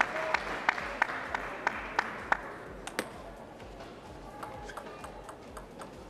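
Arena applause dying away over the first two seconds or so, with a steady run of sharp clicks about three a second. After that comes a table tennis rally: a plastic ball clicking off the bats and the table in quick succession.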